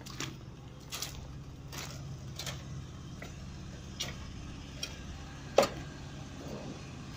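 Concrete pump running during a slab pour: a steady low engine drone with sharp knocks at a regular beat, about one every three quarters of a second, the loudest a little over halfway through.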